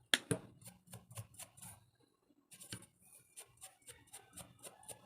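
A sharp click, then scattered light clicks and, from about halfway, a regular run of quick ticks at about five a second.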